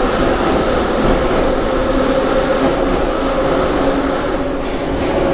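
Metro train running between stations, heard from inside the carriage: a steady rumble of wheels and running gear with a steady whine. There is a short high hiss near the end.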